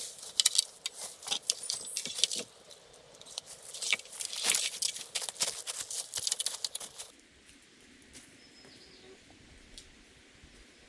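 Dense crackling and rustling for about seven seconds, then it cuts off suddenly to a quiet background with a faint bird chirp.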